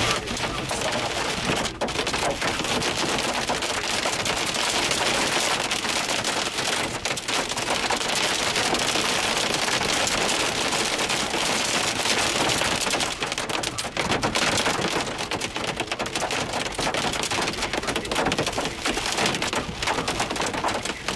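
Hail and heavy rain pelting a truck's roof and windshield, heard from inside the cab: a dense, continuous clatter of many small hits.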